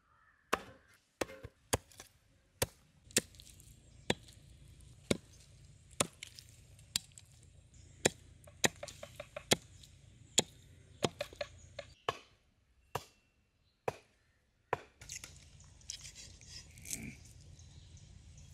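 Raw chicken being chopped into small pieces with a blade: a run of sharp, irregular chopping strikes, about one every half second to a second, thinning out near the end.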